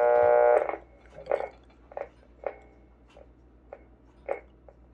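Switching mechanism of a Marconiphone Type 32 radio receiver being worked: a brief held tone at the start, then a string of short clicks and pops about every half second to second.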